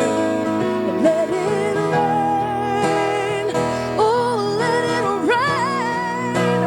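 Live acoustic performance of a pop ballad: a woman singing long held notes with vibrato over acoustic guitar, her voice climbing higher about four seconds in.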